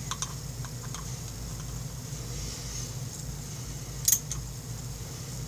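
Faint, sparse metal clicks of a small hand tool as the Motion Pro brake piston puller is tightened into a small motorcycle caliper piston, with a sharper click about four seconds in, over a steady low hum.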